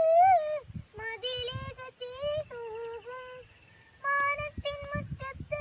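A young girl singing solo without accompaniment, phrases of held notes that slide and waver in pitch, with a short breath pause a little past halfway.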